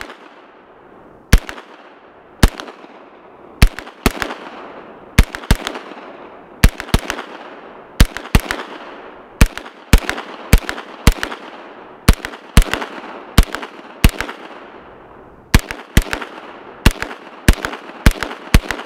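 B&T GHM9 9mm semi-automatic pistol firing a long string of shots, some single and some in quick pairs and threes, each shot trailing off in a short echo.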